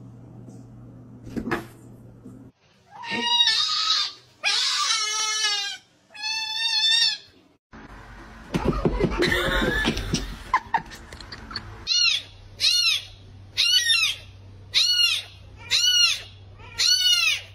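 Cats meowing and yowling, with several drawn-out calls in the first half. In the last third a young kitten mews over and over: about seven short mews that rise and fall in pitch, roughly one a second.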